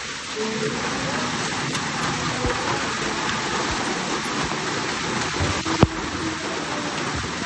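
Hail and heavy rain falling on wet paving and wooden outdoor tables: a dense steady hiss with scattered sharp ticks of hailstones striking, and one louder click about six seconds in.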